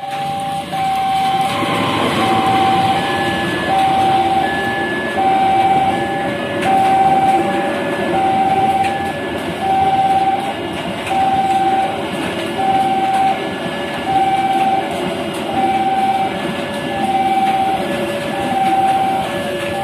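Level-crossing warning bell ringing steadily in an alternating two-note pattern, a little more than one stroke a second. From about a second and a half in, the Argo Bromo Anggrek passenger train's coaches run past over the rails, with heavy rain hissing underneath.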